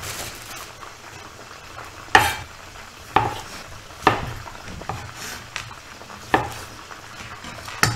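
Chef's knife cutting small tomatoes into chunks on a wooden chopping board: about six separate knocks of the blade on the board, roughly a second apart, starting about two seconds in. Underneath, a steady sizzle of chicken drumsticks shallow-frying in oil in a pan.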